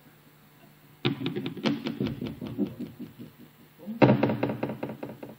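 A quick, irregular run of light knocks and taps, several a second, in two bursts: from about a second in until nearly four seconds, then again from about four seconds, opening with the loudest hit.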